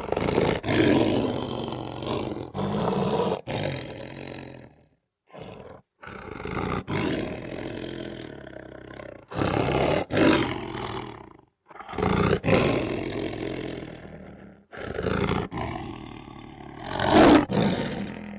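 Lion growling in a series of drawn-out bouts with light roars, separated by short pauses; the loudest roar comes near the end.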